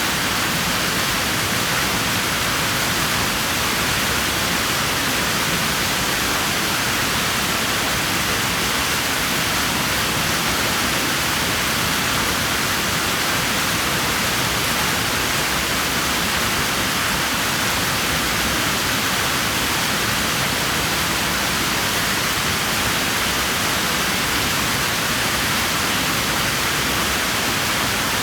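Pool water rushing steadily, an even hiss-like wash with no splashes or changes.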